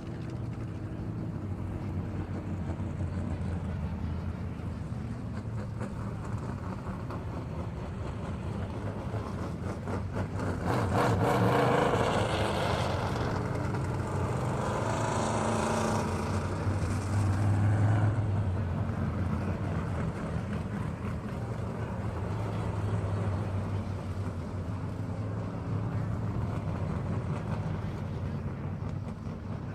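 Car engine running steadily with a low hum. It grows louder and noisier for several seconds a little over a third of the way in, then settles back.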